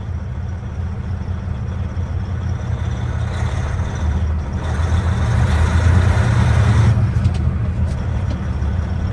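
Dump truck's diesel engine running, getting louder for a few seconds mid-way as it works harder, then easing back.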